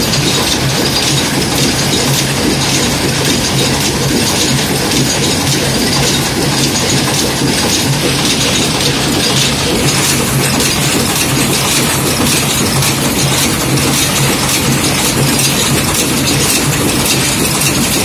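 Wire-fed screw-making machine running at speed: a steady, loud, fast metallic clatter.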